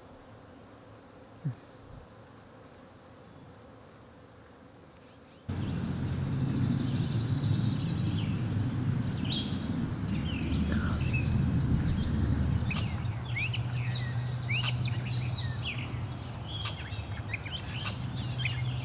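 Honey bees buzzing in a steady low hum that starts abruptly about five seconds in, with songbirds chirping over it. Before that there is only a faint hum and a single click.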